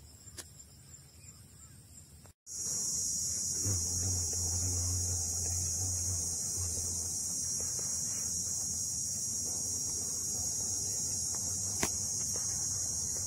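Outdoor insect chorus: a continuous, even, high-pitched shrill buzz. It is faint at first, then loud from an abrupt cut about two and a half seconds in.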